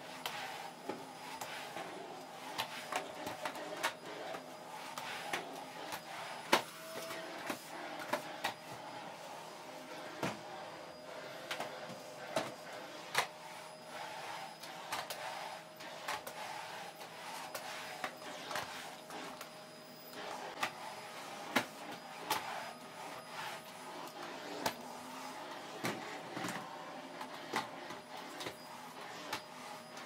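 Vacuum cleaner running with a steady hum as its floor nozzle is pushed back and forth over a rug, with frequent small clicks and crackles.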